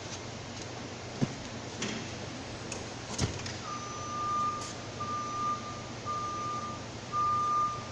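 Forklift backup alarm starting about halfway in: a single-pitched beep repeating about once a second over a steady low machine hum. A few short knocks come before it.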